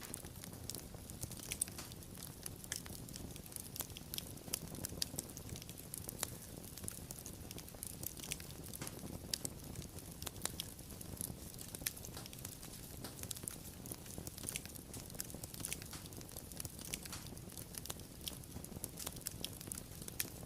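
Wood fire crackling and popping, with many sharp irregular snaps over a steady low rumble of the flames.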